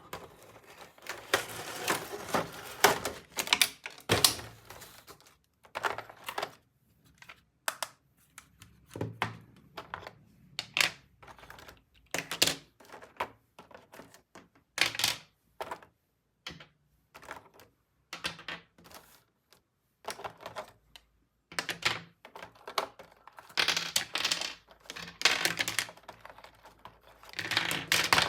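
Small hard plastic toy pieces being handled and set down: irregular clicks and taps with short rustling stretches in between.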